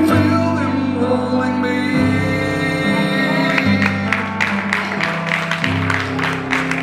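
Yamaha electric keyboard playing the closing chords of a gospel song, the bass note changing every second or two. From about four seconds in, a sharp beat of about three strokes a second joins in.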